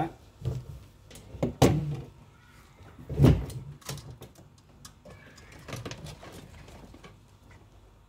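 Scattered clicks and knocks of a wire brake pull rod being worked loose by hand from a twin-tub washing machine's spin-dryer brake lever, metal hooking against the plastic tub housing; one knock about three seconds in is the loudest.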